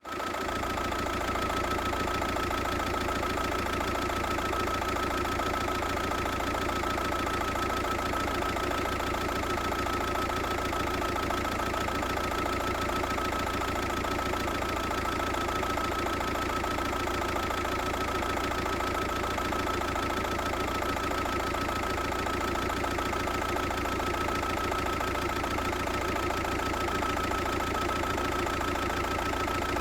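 VW Passat 1.9 PD TDI four-cylinder unit-injector turbodiesel idling with a steady diesel clatter and a high whine running through it. This is the rough, fluctuating idle whose cause the owner is asking about.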